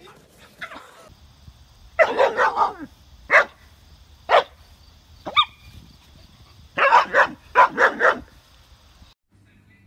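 A young German Shepherd barking: a quick cluster of barks about two seconds in, then single barks about once a second, and another rapid run of barks near the end.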